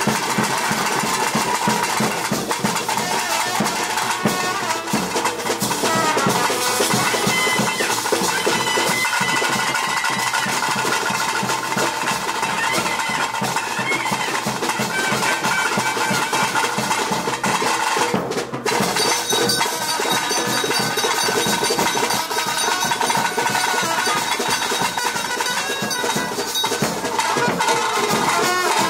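Traditional ritual band music: a shrill double-reed pipe playing a held, wavering melody over fast, continuous drumming.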